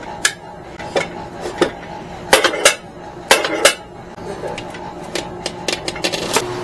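Metal clanks and clicks as a small Drill Master 6-inch chop saw is handled and shifted on the bench. There are a handful of sharp knocks, the loudest coming in two pairs about two and three and a half seconds in. The saw's motor is not running.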